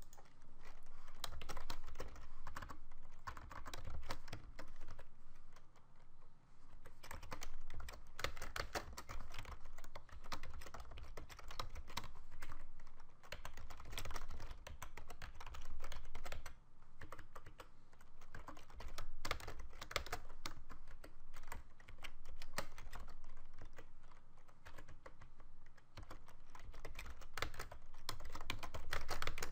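Fast typing on a computer keyboard: continuous runs of key clicks, broken by a few brief pauses.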